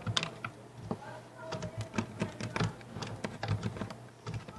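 Glue being stirred by hand in a container, the stirrer making quick, irregular clicks and taps, several a second.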